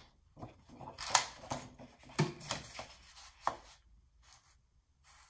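A series of sharp taps and clicks from objects being handled on a desk, loudest about one and two seconds in, then fading to a few faint ones.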